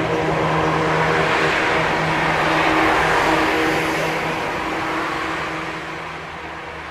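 Heavy diesel farm machinery running with a steady engine note, loudest about three seconds in and then fading away.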